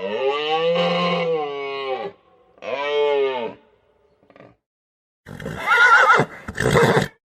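A horse neighing: a long pitched call, a shorter one, then a rougher call near the end, with pauses between them.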